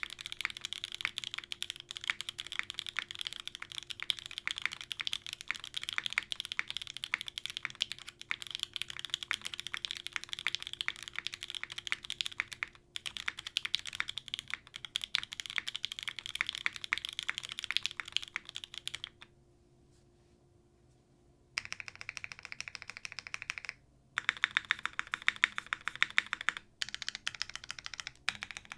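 Fast typing on a PC Kohaku custom mechanical keyboard: lubed Banana Split linear switches in an aluminium plate with a gasket leaf-spring mount, under Linworks keycaps. Rapid continuous keystrokes stop about nineteen seconds in for a couple of seconds, then resume in three shorter bursts, the later ones louder.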